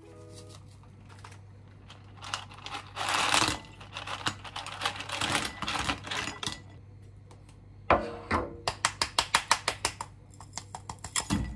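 Plastic packaging crinkling as live asari (Manila) clams are tipped out of their pack, the shells clattering into a ceramic bowl. About eight seconds in there is a sharp knock, then a quick run of light clicks.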